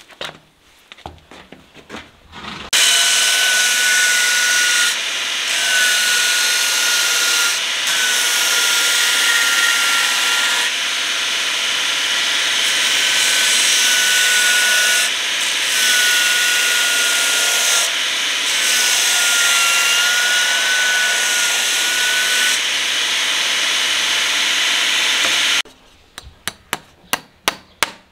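Belt grinder running with a steady whine as a steel horseshoe is ground against its sanding belt; the grinding eases and comes back every few seconds as the shoe is lifted and repositioned. Near the end it stops, and a run of quick, light metallic taps follows.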